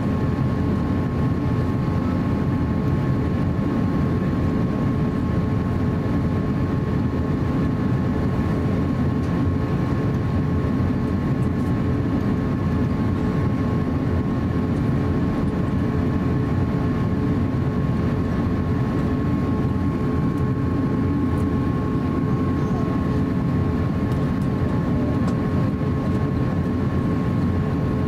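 Interior cabin noise of an Airbus A350-900 taxiing on the ground: a steady low rumble with a thin steady whine on top.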